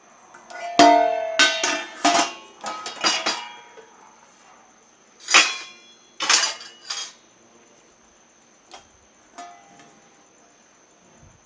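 Clattering and clanking of a metal dishwasher rack and fittings being handled, rapid rattles with a ringing clang in a burst during the first few seconds, two or three more clanks near the middle, then a couple of light knocks.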